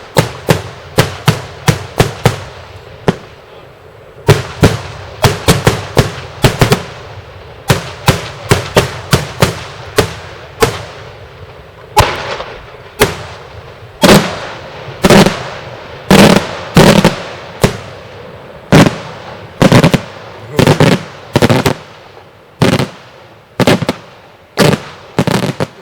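Daytime fireworks display, shells bursting in a rapid string of sharp bangs. The bangs come in quick clusters for about the first ten seconds, then as heavier, more spaced booms with echoing tails, roughly one or two a second.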